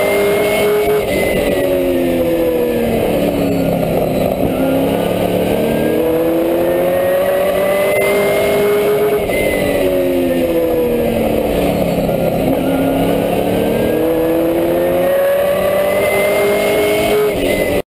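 Super truck race engine heard from inside the caged cockpit while lapping a short oval. Its pitch drops twice as the truck lifts for the turns and climbs again down each straight, over steady wind and road noise. The sound cuts off abruptly at the very end.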